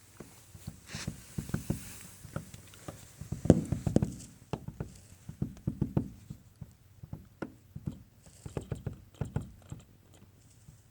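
Woodpecker pecking on a wooden door: bursts of rapid sharp taps with short pauses between them, the loudest cluster a few seconds in.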